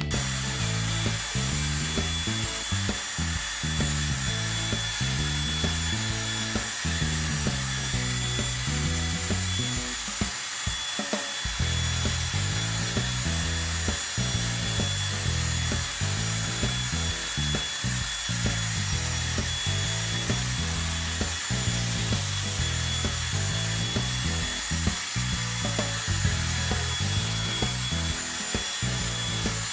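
Ryobi cordless drill fitted with a scrub brush running against the floor: a steady scrubbing noise with a thin high motor whine. Background music with a stepping bass line plays underneath.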